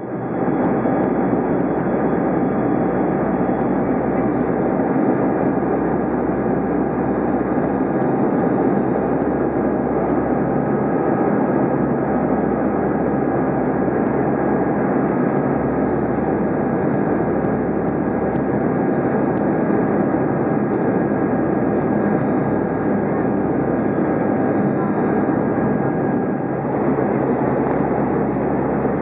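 Steady cabin drone of an ATR 72's twin turboprop engines and propellers, heard from inside the passenger cabin: a dense rushing noise with a few steady humming tones in it, during the descent on approach.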